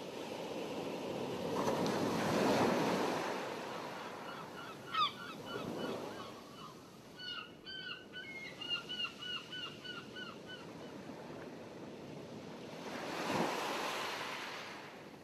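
Water noise of waves washing, rising and falling in two slow swells. Between them comes a run of short, squawking calls, about four a second.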